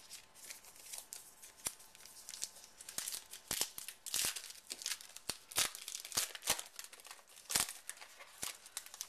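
Foil wrapper of a trading card pack being torn open and crinkled by hand: a run of irregular sharp crackles and snaps.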